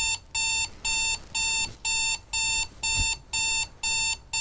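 Electronic wake-up alarm beeping steadily, about two short beeps a second, each beep a bright, shrill tone with several pitches sounding together.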